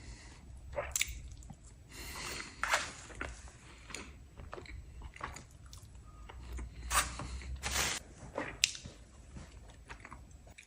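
A person chewing and biting food close to the microphone: irregular wet mouth clicks and smacks, with a few louder bites scattered through.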